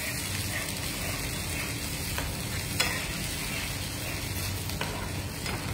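A spatula stirring a thin, watery sauce in a non-stick frying pan while the liquid sizzles over the heat, with a few light taps of the spatula against the pan.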